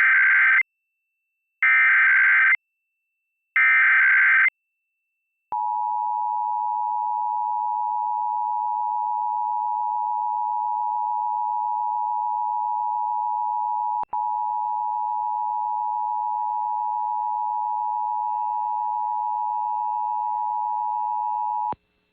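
Emergency Alert System test signal. First come three short bursts of SAME header data, a harsh digital warble, about two seconds apart. Then the EAS attention signal, a steady two-tone 853 and 960 Hz tone, sounds for about sixteen seconds with a brief click about halfway. Together they mark the start of a required monthly test.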